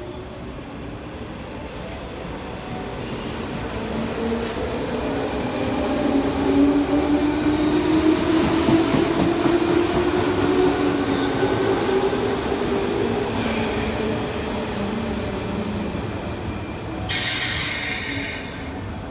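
A JR West 201 series chopper-controlled electric commuter train running past close by. Its motor hum rises slowly in pitch as the train gathers speed and grows louder through the middle, then eases. A short high hiss or squeal comes near the end.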